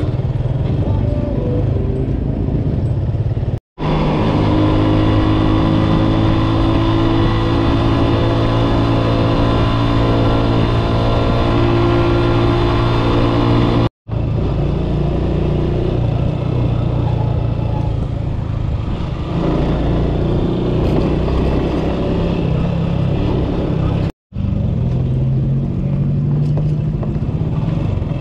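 Motorcycle engine running steadily while the bike is ridden, heard from the rider's seat. The sound drops out briefly three times.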